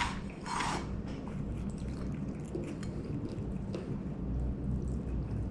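A fried crappie being cracked open, with a short crunch about half a second in, then faint small crackles and clicks.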